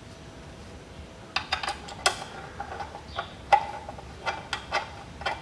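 Irregular light clicks and metallic knocks as a new automatic-transmission filter is fitted by hand onto the valve body, starting about a second in, some with a short metallic ring.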